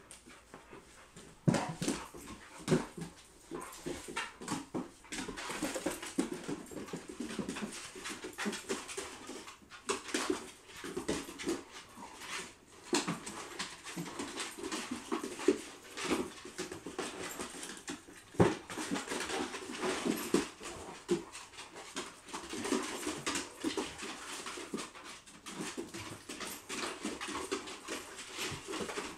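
A boxer and a pit bull puppy playing together: dog play noises, with irregular short clicks and knocks.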